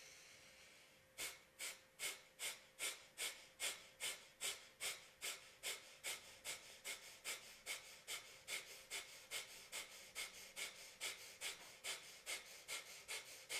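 Breath of fire (yogic breathing): a steady in-breath for about a second, then a long, even run of short, sharp exhalations through the nose, about two and a half puffs a second.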